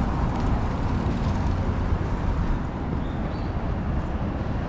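City street ambience: the steady low rumble of road traffic going by.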